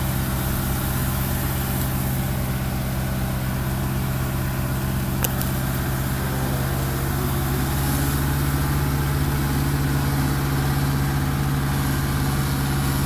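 Kubota compact tractor's diesel engine running steadily as it tows a stuck vehicle on a rope, heard from close behind. One short click about five seconds in.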